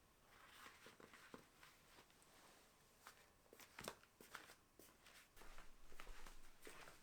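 Near silence: faint room tone with scattered soft clicks and light knocks, one a little louder about four seconds in.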